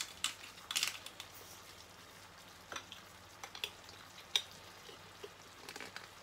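Hand salt grinder being twisted over a pan, grinding Himalayan salt crystals in a few short crunchy strokes within the first second, then only a few faint scattered clicks.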